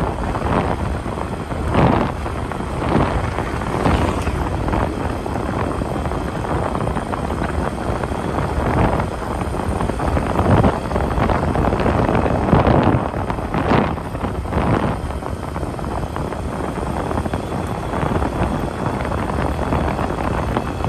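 Wind buffeting the microphone: a steady low rumble with irregular louder gusts every second or two.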